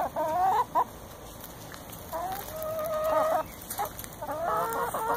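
Domestic hens clucking and giving drawn-out calls, in three bouts: at the start, in the middle and near the end.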